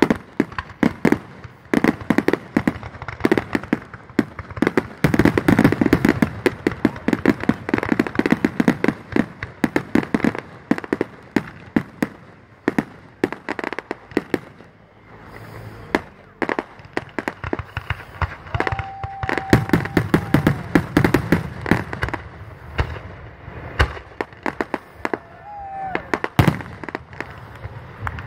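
Fireworks finale: a dense, rapid barrage of bangs and crackling reports, thinning briefly about halfway through before building again.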